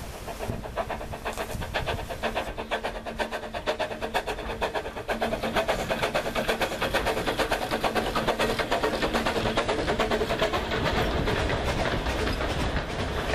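Narrow-gauge steam locomotive Dolgoch, an 1866 tank engine, working steadily with rapid, even exhaust beats, growing louder about five seconds in as it passes close, then its four-wheel carriages rolling by on the rails.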